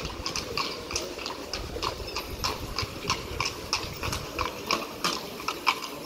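Carriage horses' hooves clip-clopping, a quick irregular run of hoofbeats, several a second.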